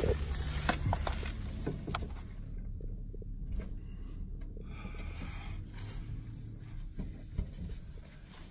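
Handling sounds of ABS pipe and a can of ABS cement: a few light knocks in the first couple of seconds, then soft scraping and rustling as the pipe and the cement dauber are handled.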